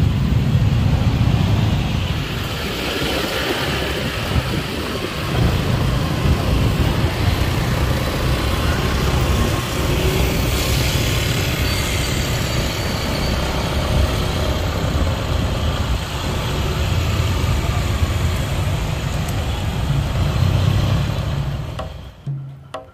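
Busy night-time street traffic: a continuous mix of passing vehicle engines and tyre noise. It cuts off suddenly near the end.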